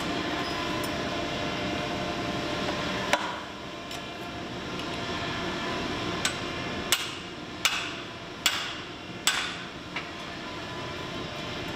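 Hand hammer blows ringing metal on metal as a hot carving axe head is worked at the anvil: one sharp strike about three seconds in, then six more spaced blows between about six and ten seconds. A steady machine hum runs underneath.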